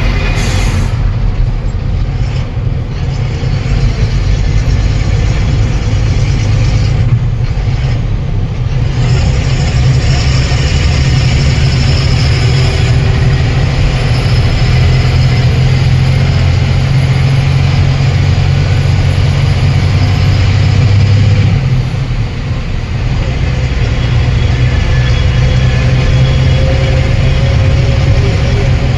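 Truck engine running steadily while driving, a loud low drone, with a brief dip and change in the engine note about two-thirds of the way through.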